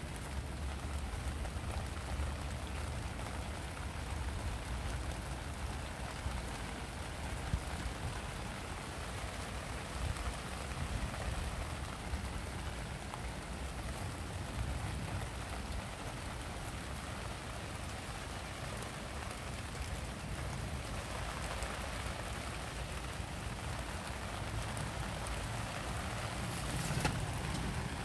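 Steady rain hiss with a low rumble on the microphone and occasional faint steps and rustles as the camera is carried through wet grass.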